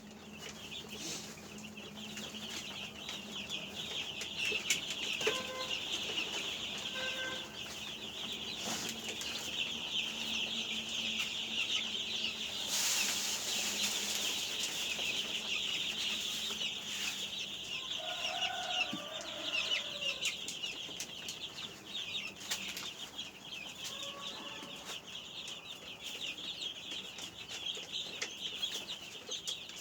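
A brood of 12-day-old chicks peeping together in a steady, dense high-pitched chorus, with a few lower, longer calls now and then and a brief rustle about thirteen seconds in.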